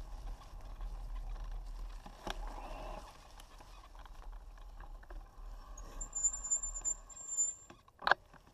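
Fat bike tyres rolling over a leaf-strewn dirt trail, heard through a handlebar-mounted camera, with a low rumble and scattered small rattles and clicks. A thin, steady high tone sounds for about two seconds near the end, then a single sharp knock.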